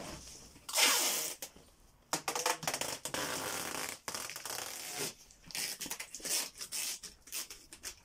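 Packing tape being pulled off the roll and pressed onto a cardboard box: two long rasping pulls in the first half, then a run of shorter rips and rubs.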